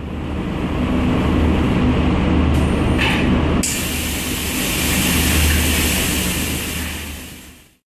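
Machinery of a moisture-measuring robot handler running with a steady low hum and mechanical noise; about three and a half seconds in, a hiss comes in sharply and carries on.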